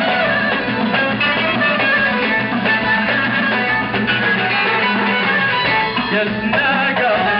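Live band playing Moroccan aita music, led by plucked string instruments.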